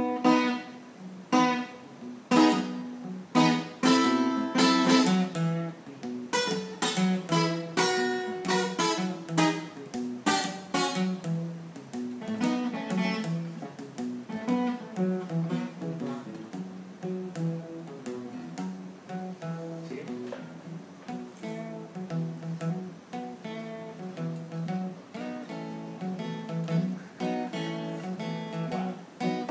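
Two steel-string acoustic guitars played together, unplugged. For about the first ten seconds they strike loud, sharp strummed chords; after that the playing turns to quieter, quicker picked notes.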